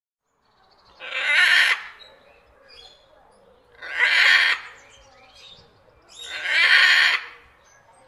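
Macaw giving three harsh squawks, each under a second long, about two and a half seconds apart.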